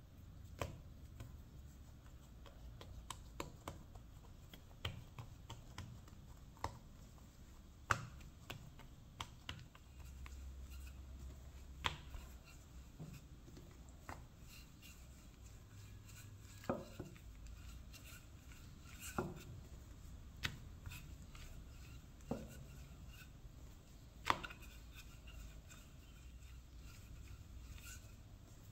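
Wooden rolling pin and hands working stuffed dough on a countertop: scattered sharp clicks and knocks at irregular moments as the pin is set down and rolled, over a low steady background hum.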